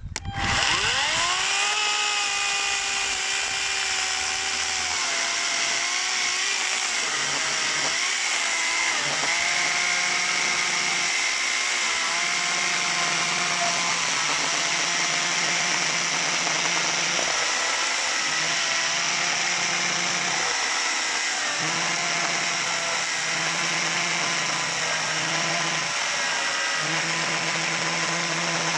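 Ferrex FN-AKS 4030 40-volt cordless electric chainsaw spinning up and cutting through a thick log. Its motor whine rises as it starts, then sags in pitch each time the chain bites in under load and recovers between bites.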